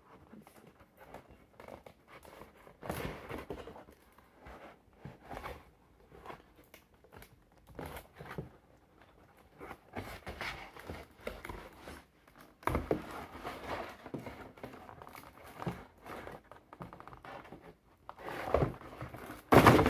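Cardboard toy box and its packaging rustling, scraping and knocking as a plastic dinosaur figure is worked loose from the box insert. There are irregular handling noises throughout, a sharp knock about thirteen seconds in and a louder thump near the end.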